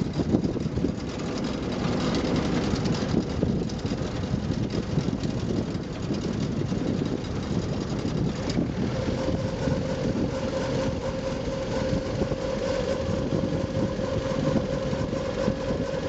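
The engine of a LESNIK amphibious all-terrain vehicle runs steadily as the vehicle drives. About nine seconds in, a steady whine joins it.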